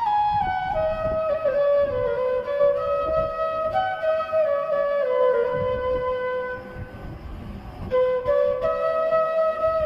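Background music: a flute melody of held and gliding notes, softening briefly about two-thirds of the way through before the tune picks up again.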